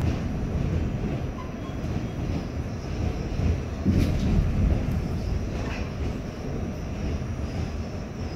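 R46 subway car of the A train running along the track, heard from inside the car. A steady low rumble with a few sharp knocks, about four and six seconds in.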